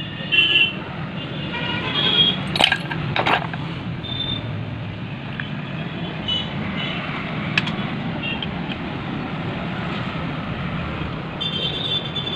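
A few sharp metallic clinks of tools and engine parts being handled, two close together about two and a half seconds in and another a little past halfway, over steady traffic noise.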